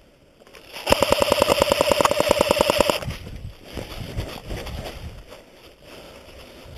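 Cyma AK74M airsoft electric gun firing a rapid full-auto burst lasting about two seconds, starting about a second in. After it, footsteps crunch through dry leaf litter.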